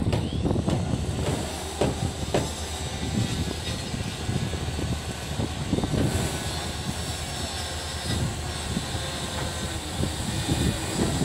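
Passenger railway coach rolling slowly along the track with irregular low knocks and a steady rumble. A steady hiss from the coach-wash water spray runs underneath.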